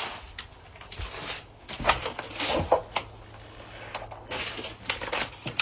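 Irregular knocks, scrapes and rustles, as of someone moving about and handling things in a room, with a faint steady low hum through the second half.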